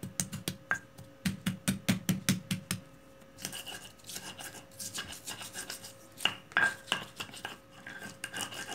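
Stone pestle crushing and grinding garlic, ginger, turmeric and candlenuts with salt on a stone mortar (Indonesian cobek and ulekan). It begins with quick crushing strikes, about four a second, for about three seconds, then turns to steady gritty rubbing and scraping as the spices turn into a paste.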